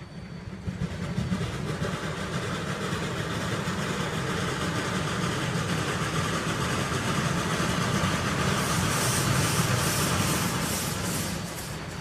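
Steam locomotive approaching slowly on the track: a steady low rumble that grows louder over the first couple of seconds, with a run of quick rhythmic hissing pulses near the end.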